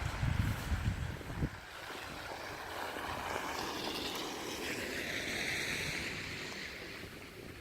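Tyres hissing through wet slush as a vehicle passes on a snowy street, the hiss swelling and then fading away. Gusts of wind buffet the microphone in the first second and a half.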